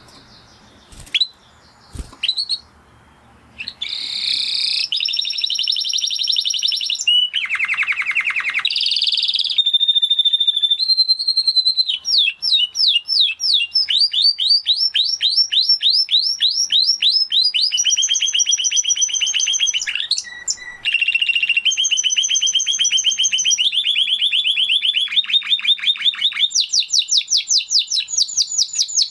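Spanish Timbrado canary singing a long song of rapid trills and fast repeated note runs that change every second or two, starting about four seconds in. Two sharp clicks come before the song.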